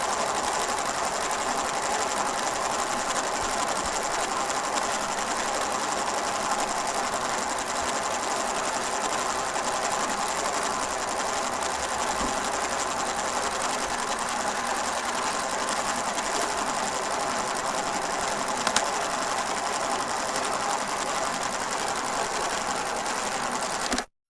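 Film projector running, a steady rapid mechanical clatter of the film-advance mechanism over the motor's whir, which cuts off abruptly near the end.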